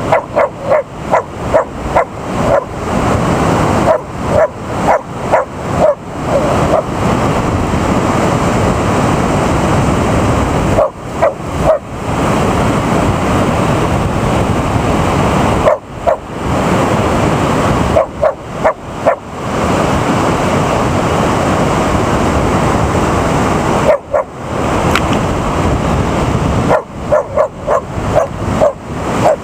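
American Eskimo dog barking in quick runs of several sharp barks with pauses between.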